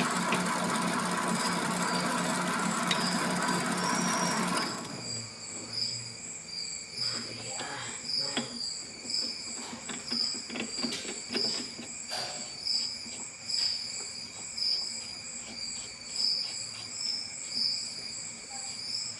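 MX 600A mini lathe running with a steady hum and cutting noise, switched off suddenly about five seconds in. After that, high chirps repeat about once a second, typical of a cricket, with a few light clicks.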